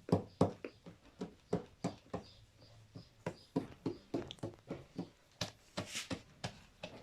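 Rhythmic knocking or tapping, about three short strokes a second, with a brief pause partway through.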